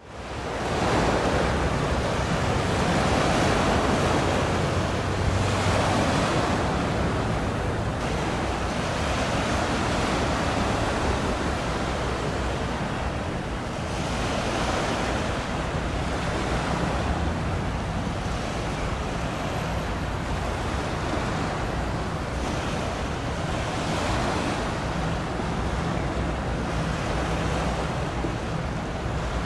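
Sea waves and wind on the microphone: a steady rushing that swells every few seconds, fading in at the start.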